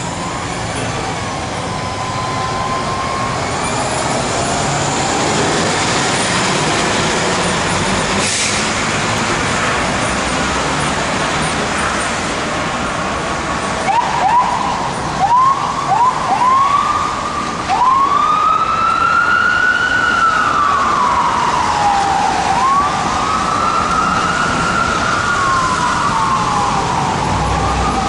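Fire engine siren on a 2016 Spartan Gladiator/Smeal rescue engine responding code 3. Road and engine noise comes first with a faint siren early on. About halfway through it sounds a few short rising whoops, then settles into a slow rising-and-falling wail.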